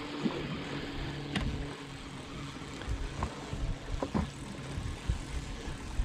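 A boat motor running with a steady low hum, with a few light clicks over it.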